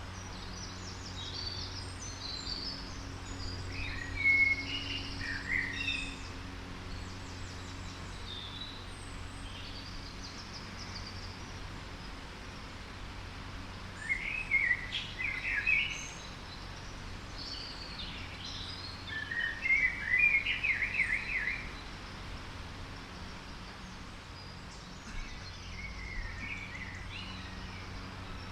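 Songbirds singing and calling in woodland, with phrases about four, fourteen and twenty seconds in; the loudest, around twenty seconds, is a rapid run of repeated notes. A steady low hum runs underneath.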